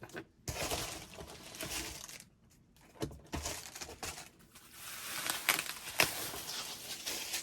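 Packaging being crinkled and torn by hand as an item is unwrapped, in stretches of rustling with short pauses and a few sharp clicks in the second half.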